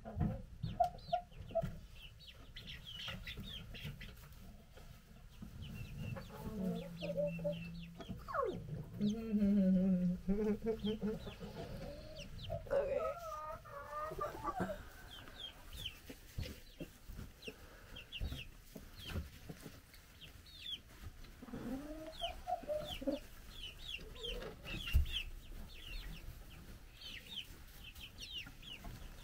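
A flock of young chickens calling: many short, high peeps throughout, with lower clucking and trilling calls mixed in, busiest between about 6 and 15 seconds in and again briefly a little past 20 seconds.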